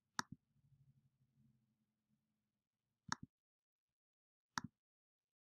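Three soft clicks of a computer pointing-device button, each a quick press and release: one right at the start, one about three seconds in and one about four and a half seconds in. Between them, near silence.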